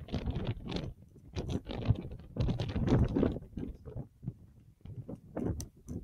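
Gusty wind buffeting a microphone: uneven bursts of rumble and crackle, loudest about two and three seconds in.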